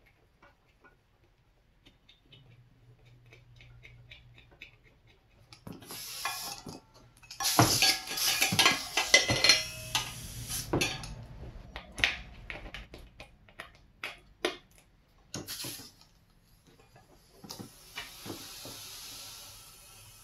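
Compressed air hissing in bursts through a trigger-type tire inflator into a dirt bike tire, with sharp clicks and metallic clinks between the bursts. The loudest, longest burst comes in the middle; a steadier hiss follows near the end.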